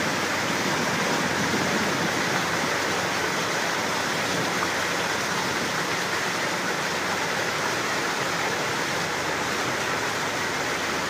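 Steady rushing noise of a cruise boat under way, with water and air streaming past the hull.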